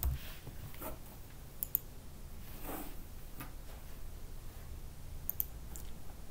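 A few scattered computer keyboard keystrokes, sharp single clicks spaced a second or more apart, over a faint steady low hum.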